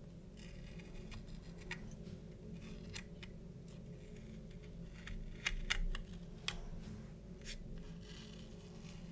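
Masking tape being peeled off a painted plastic model kit with metal tweezers: soft rasps of tape coming away and scattered small sharp clicks, the loudest cluster about five and a half seconds in.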